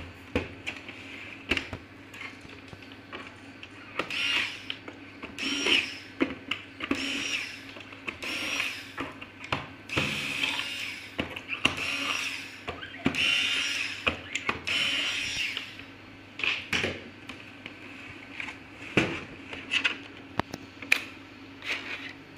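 Small corded electric screwdriver running in short bursts, about eight in a row, undoing the screws in a projector's plastic underside. Clicks and knocks of the plastic housing being handled come between the bursts and after them.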